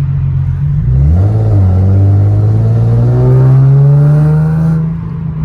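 Infiniti G37's V6 engine accelerating hard: the revs jump about a second in, then the engine note climbs steadily for about three seconds before easing off near the end.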